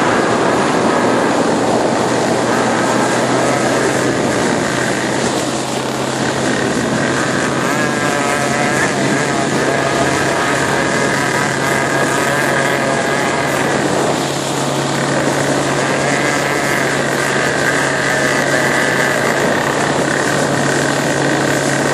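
Motorboat engine running steadily underway, with water rushing along the hull and spraying from the wake. There is a steady low drone and a higher whine that wavers in pitch.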